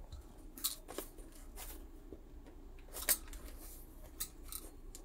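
Plastic blister pack of Pokémon card boosters being handled, giving a handful of short, scattered clicks and crinkles of the plastic.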